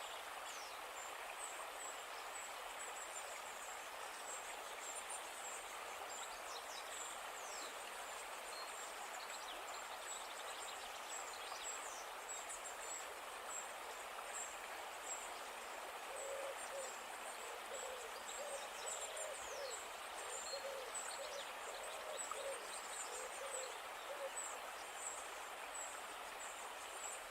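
Steady rush of a flowing river under continuous high-pitched chirping of small birds. From a little past halfway, a bird gives a run of short, low, evenly repeated calls for about nine seconds.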